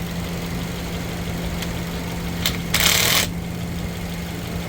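Subaru Impreza engine idling steadily under the open hood. About two and a half seconds in there is a click, followed by a short, loud rustling scrape of about half a second.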